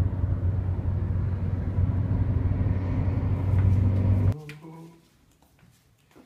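Steady low engine and road rumble inside a moving car's cabin. It cuts off suddenly about four seconds in, leaving faint room sound with a few small clicks.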